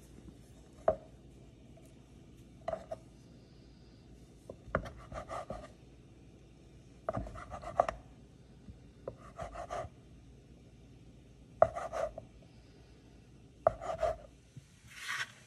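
Knife cutting a log of dough into pieces on a wooden cutting board: a sharp knock of the blade on the board about every two seconds, some cuts with two or three quick knocks, and a brief scrape near the end.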